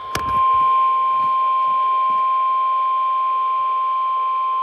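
Weather radio warning alarm tone: a single steady high tone of about 1 kHz, held unbroken, with a click just after it starts. It is the alert signal that comes before a National Weather Service warning broadcast.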